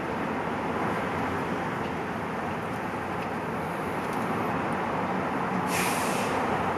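Steady ambient rushing noise with no clear pitch, and a short burst of hiss about six seconds in.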